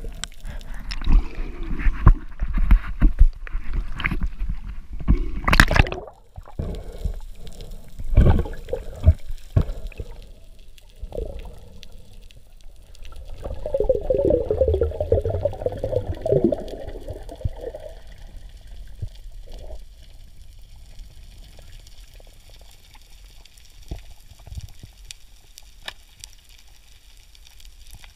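Sea water sloshing and gurgling around a free diver, with irregular knocks early on and a denser stretch of gurgling for a few seconds in the middle.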